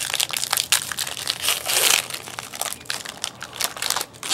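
Crinkling and crumpling of a trading-card pack wrapper being handled and opened, a dense run of crackles with a louder burst around the middle.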